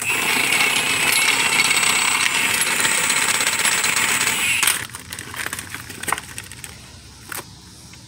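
Clear plastic parts bag crinkling loudly as it is handled and opened to take out a new bearing snap ring; it stops sharply about four and a half seconds in. Light metallic clicks and taps follow as the ring is handled.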